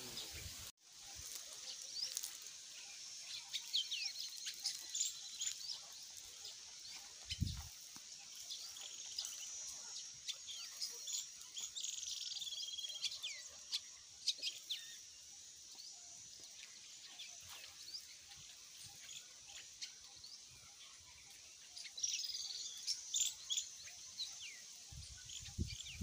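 Birds chirping and calling, many short high chirps and whistles scattered through, over a faint steady high-pitched hiss. There is a single soft low thump about seven seconds in.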